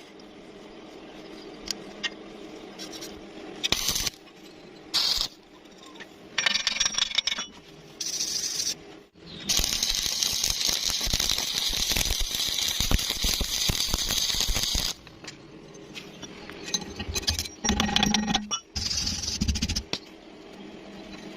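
Stick-welding arc crackling and hissing in bursts: several short strikes, a longer steady run of about five seconds in the middle, then a few more short runs near the end.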